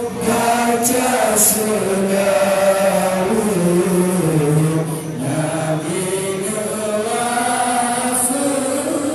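Voices chanting a devotional Islamic recitation (sholawat on the death of the Prophet), in long held notes that slide slowly up and down in pitch.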